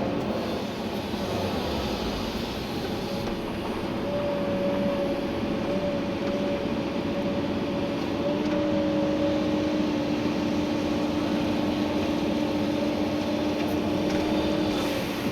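Komatsu PC290-11 excavator's diesel engine and hydraulics running steadily under digging load, heard from inside the cab, with a steady whine over the engine rumble.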